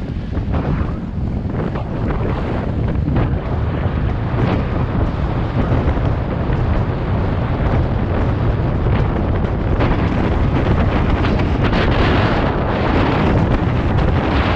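Wind buffeting an action camera's microphone: a dense, low rumbling noise that grows louder over the first couple of seconds and then holds steady.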